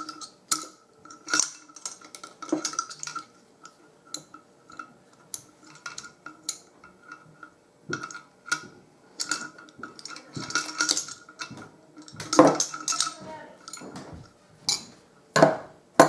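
Pliers, a metal chain link and the metal canning-jar lid clinking together as the link is squeezed shut onto the lid's hook: a run of small, irregular metallic clicks and taps with a light ringing. A louder clack comes near the end.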